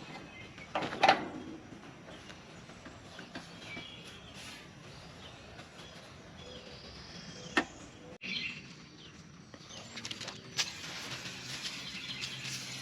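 Scattered knocks and clanks of a heat pump's outdoor condenser unit being taken apart by hand, its metal panels and parts being handled. The loudest knock comes about a second in, with a few more later.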